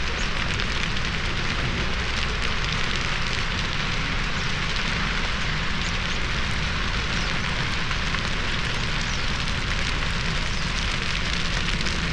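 Dry grass burning in an open field fire, a dense, steady crackle.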